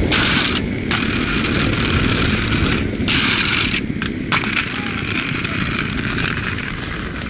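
Inline skate wheels rolling on pavement: a steady rumble with a hiss above it that drops out briefly a few times.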